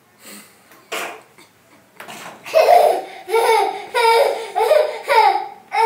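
A child laughing: a run of about six rhythmic ha-ha pulses starting about two and a half seconds in, after a couple of soft knocks.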